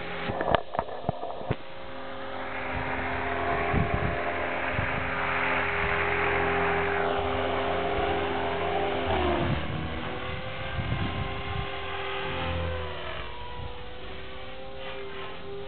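Align T-Rex 500 electric RC helicopter in aerobatic flight: a steady motor and rotor whine that dips in pitch briefly about nine seconds in and again around thirteen seconds. There is a rush of rotor noise in the first half, and a few sharp clicks in the first second or two.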